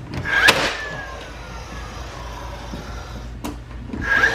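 Cordless nail gun firing into wood trim twice, about half a second in and again at the end, each shot a sharp crack followed by a thin motor whine that slides down in pitch.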